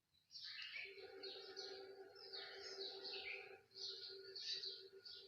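Small birds chirping over and over, with a faint steady hum coming in about a second in.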